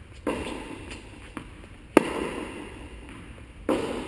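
Tennis rally: a tennis ball struck by racquets and bouncing on the court, about four sharp pops, each followed by a long echo from the large indoor hall. The loudest, sharpest hit comes about halfway through.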